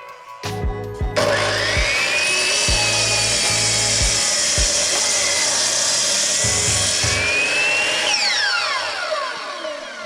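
Power saw cutting through a wooden stud board, about seven seconds of steady cutting noise with a whine that rises and dips. Near the end the saw winds down with a falling whine.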